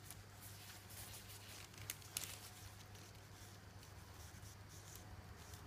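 Faint rustling and light ticks from latex-gloved hands gripping and tilting a paint-covered vinyl record, with two slightly sharper clicks about two seconds in, over a low steady hum.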